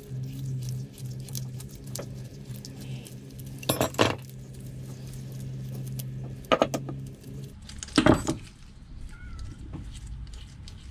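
Metal clicks and clinks of a socket tool and the steel spindle and body of a bicycle pedal being handled, with three louder clinks about four, six and a half, and eight seconds in. A low steady hum stops about seven and a half seconds in.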